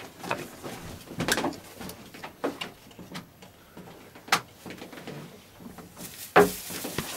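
Scattered clicks and knocks of a 3D printer's heated bed carriage being handled and fitted onto the frame's steel guide rods, the loudest knock about six seconds in.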